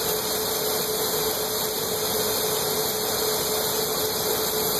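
Steady hiss of a glassblower's hand torch flame, with a steady machine hum underneath from the glass lathe turning the work.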